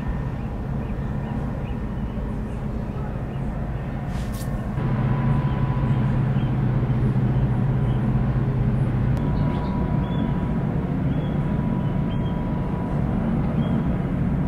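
Steady low engine drone of a large Stena Line ro-pax ferry under way, with a faint steady whine above it. The drone gets louder about five seconds in.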